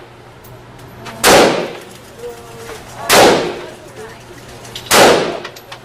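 Three gunshots at an indoor shooting range, evenly spaced about two seconds apart, each trailing off in an echo.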